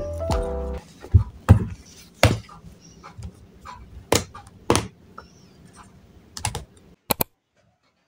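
A book shut and books and study things handled and set down on a table: a series of separate thuds and taps a second or so apart, ending with two quick clicks. Lofi background music plays under the first moment and then stops.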